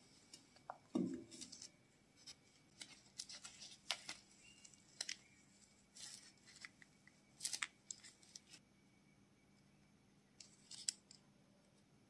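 Faint clicks, taps and scratchy rustles of small metal and plastic gas-lighter parts, the gas nozzle and the spark igniter unit with its wire, being handled and fitted by gloved fingers, with a low knock about a second in.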